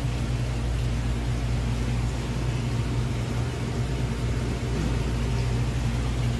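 Steady low machine hum with an even background hiss.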